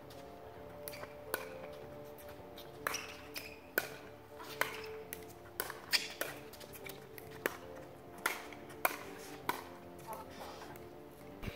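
Pickleball rally: a dozen or so sharp pocks of paddles hitting a plastic pickleball, irregularly spaced half a second to a second apart, the loudest about six seconds in. Music plays in the background.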